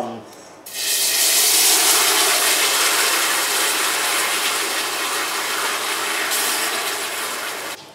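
Wet spice paste poured into a pan of hot coconut oil and whole spice seeds, sizzling loudly with a steady hiss. The sizzle starts about a second in and cuts off abruptly near the end.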